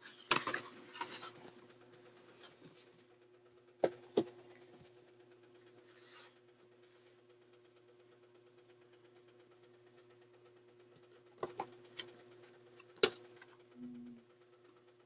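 Hands handling the box and contents of a gel polish starter kit: a burst of rustling near the start, then scattered sharp clicks and taps as items are handled, over a steady low hum.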